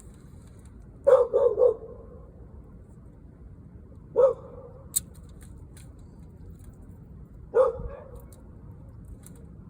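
A dog barking: three quick barks about a second in, then single barks about three and six seconds later. A single sharp click falls between the last two.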